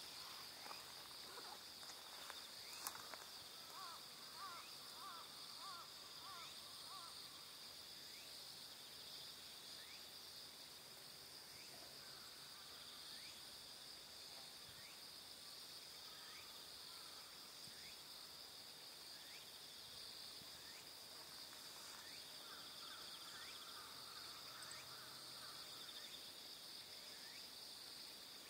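Faint outdoor insect chorus, a steady high continuous buzz. Runs of short repeated chirps come twice, a few seconds in and again near the end, with a couple of sharp ticks early on.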